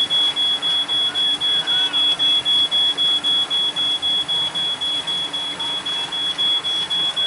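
An electronic beeper sounding a high-pitched beep over and over, about four times a second, steady and unchanging.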